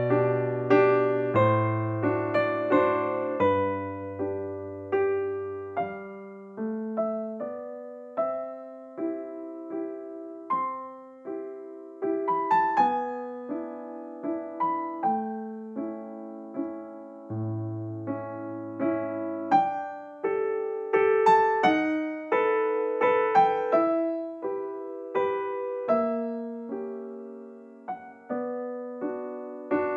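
Background piano music: a slow melody of struck notes that fade away, with chords and occasional low notes beneath.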